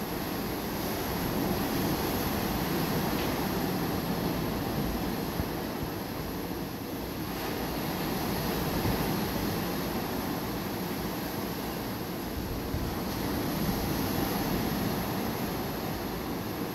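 Surf from small waves breaking and washing up a sandy beach: a steady rush that swells and eases every few seconds.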